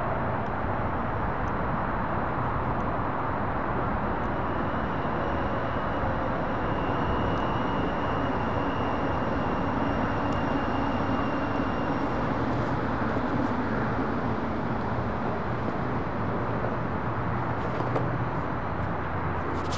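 Two-car light rail train rolling in and slowing to a stop at a station platform, its running noise steady, with a high steady whine for several seconds in the middle of the approach.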